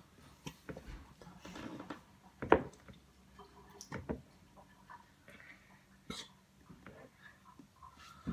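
Scattered light knocks and taps from handling a gallon plastic jug of white glue over a plastic mixing bowl while pouring. One sharper knock comes about two and a half seconds in.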